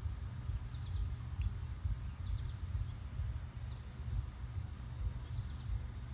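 A low, uneven rumble, with small birds chirping faintly in quick groups of two or three high notes about every one and a half seconds.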